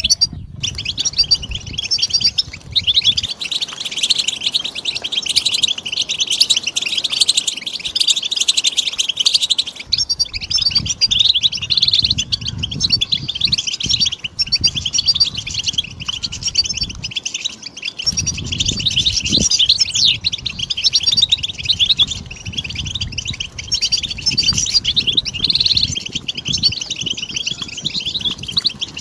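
European goldfinch singing: a dense, unbroken stream of high twittering chirps and trills.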